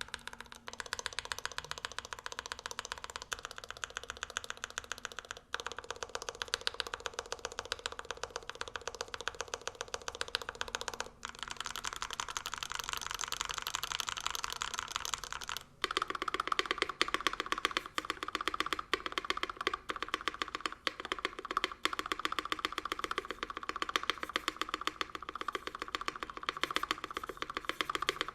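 Continuous fast typing on a gasket-mounted, aluminium-plate Bauer 1 custom mechanical keyboard with Tealios V2 linear switches lubed with Krytox 205g0 and GMK keycaps. The keystrokes sound deeper than usual for Tealios, which have a name for being high-pitched.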